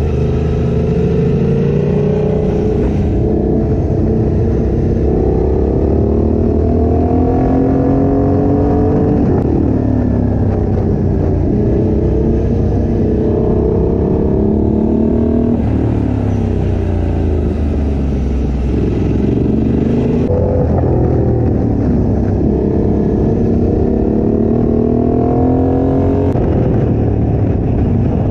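Motorcycle engine heard from the rider's seat while riding. The revs climb and fall back again and again as the bike accelerates through the gears and slows for the bends.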